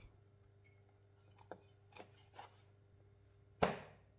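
Chef's knife chopping through a fish's backbone onto a plastic chopping board: a few faint taps, then one sharp chop near the end.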